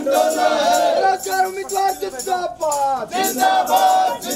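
A crowd of men shouting protest slogans in unison, one loud call after another, several calls ending in a falling pitch.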